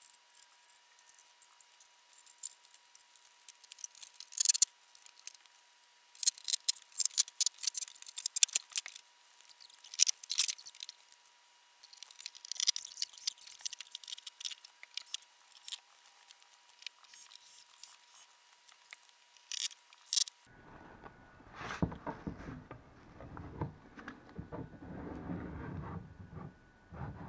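Hand work on a wooden boat hull: scattered light clattering and rattling clicks, then, after a cut about 20 seconds in, steadier rubbing and scraping along the joint between deck and hull.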